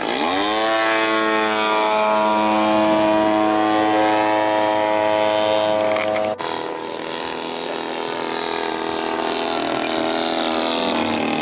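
Piston engine of a radio-controlled model airplane throttling up, its pitch rising over the first second, then running steadily at high power. After a sudden break about six seconds in, a model aircraft engine runs steadily again.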